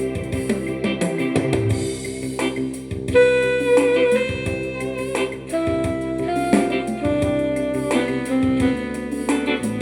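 Instrumental music: a melody of plucked, guitar-like notes over sustained chords, with a light drum beat.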